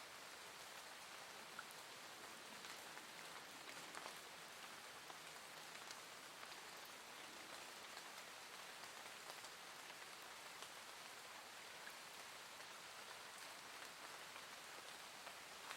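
Soft, gentle rain falling steadily: a constant faint hiss with scattered light drop ticks.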